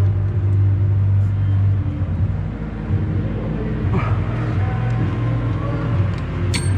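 A car engine running steadily at idle, with a sharp metallic clink near the end.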